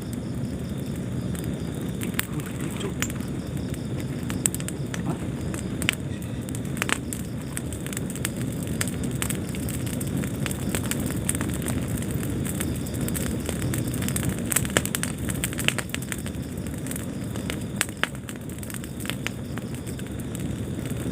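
Fire burning in a fireplace: a steady low rumble of flames with frequent, irregular sharp crackles.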